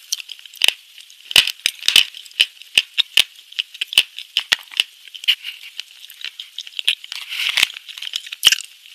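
Clear plastic container being handled close to the microphone: irregular sharp clicks and rattles, a few a second, with a brief rustle about seven seconds in.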